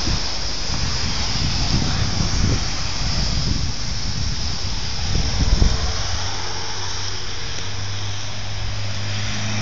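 Rushing noise with irregular low rumbling, then a steady low engine hum from about six seconds in: a vehicle running, with wind on the microphone.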